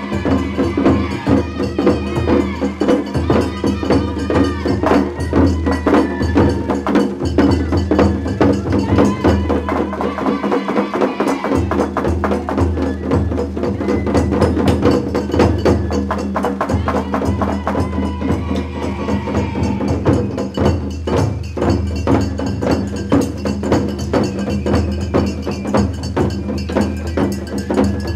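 Japanese festival ohayashi played live on a dashi float: taiko drums and a small hand gong beat a fast, steady rhythm under a gliding bamboo-flute melody.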